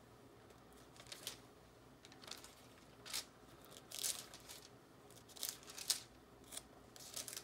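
Bible pages being turned and leafed through by hand: a string of soft, brief papery rustles and flicks, about eight in all.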